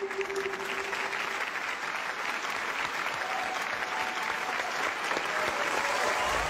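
Studio audience applauding with steady, dense clapping. A held tone sounds under the clapping and fades out about a second in.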